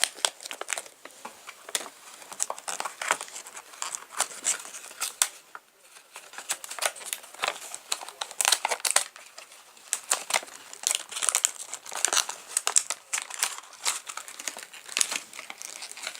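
Plastic packaging crinkling and rustling in irregular crackles as fidget spinners are handled and packed back into their small boxes.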